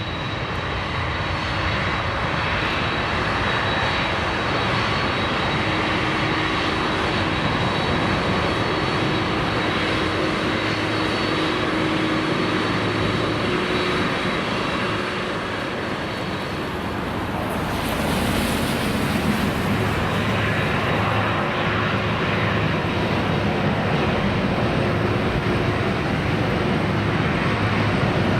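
Boeing 747-400 freighter's four jet engines running, a steady dense noise with a thin high whine over it. About two-thirds of the way through, the whine drops out and the sound turns deeper, building slightly toward the end.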